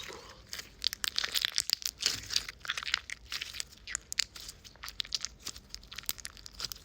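Slime being squished and worked by hand, giving a dense run of crackling, crunchy clicks and pops.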